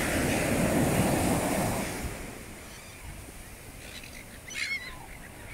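Ocean surf breaking and washing up the sand, loud for about the first two seconds and then softer. A gull gives a short call near the end.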